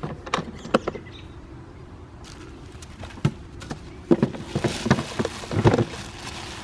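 Handling noises from unpacking a cordless pressure washer and its parts: a few light clicks and knocks, then from about four seconds in a busier spell of knocks and rustling.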